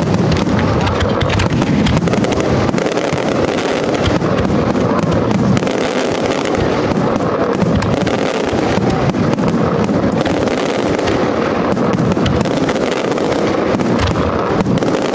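Spanish display fireworks: a dense, unbroken barrage of aerial shells bursting, with many bangs and crackles running together without a pause.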